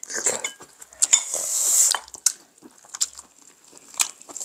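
Eating at the table: a long hissing slurp or sucked-in breath about a second in, with short clicks of chopsticks against dishes and chewing sounds.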